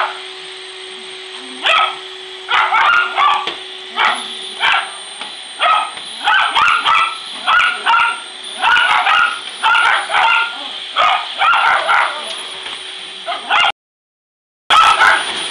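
Schnauzers barking and yipping in rapid volleys at a running vacuum cleaner, whose steady motor hum and whine run underneath. The sound cuts out for about a second near the end.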